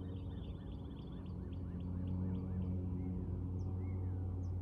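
Songbirds singing: a fast run of repeated chirps and a high trill through the first half, then a few single slurred notes, over a steady low hum.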